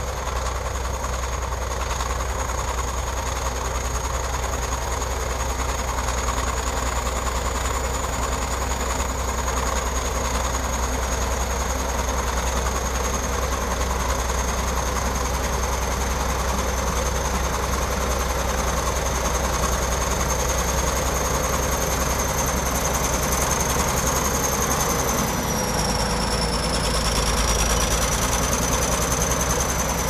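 Shantui SD22 crawler bulldozer's diesel engine running steadily under load as it pushes a blade full of dirt. A thin, steady high whine sits above the rumble and dips briefly in pitch near the end.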